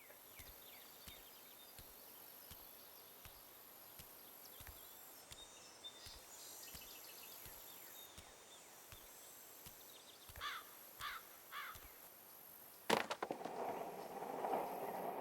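Faint outdoor ambience with small bird chirps, then three short, louder calls a little past the middle. Near the end a sharp click is followed by a louder rushing noise.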